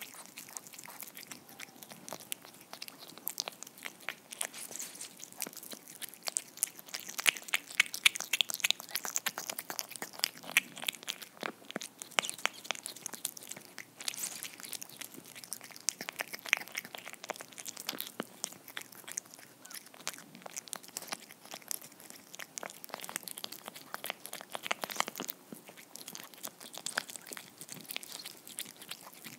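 A cat eating soft homemade tuna cake from a ceramic dish, heard close up: a quick run of small wet chewing and lapping clicks, with brief pauses.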